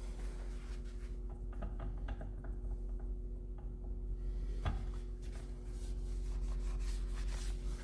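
Hands handling small parts at a workbench: a few light clicks and one sharper knock just before the middle, then several seconds of rubbing, over a steady electrical hum.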